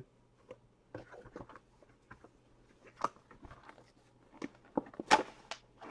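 Cards and packaging being handled: scattered soft clicks, taps and crinkles, with a louder sharp crinkle about five seconds in.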